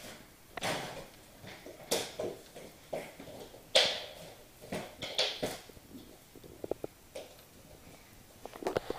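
Water at a leaking reverse osmosis faucet, making irregular short drips, clicks and gurgles, a few of them louder than the rest.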